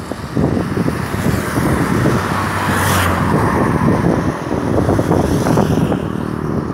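Highway traffic noise, with a vehicle passing close at speed about three seconds in.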